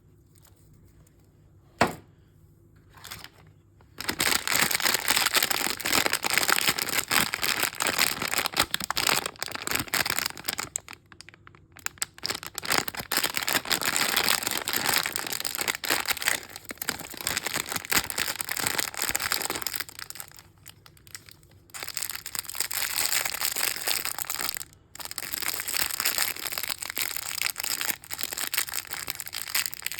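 A sharp click about two seconds in, then mystery-bag packaging crinkling and tearing as it is handled and opened, in long stretches broken by a few short pauses.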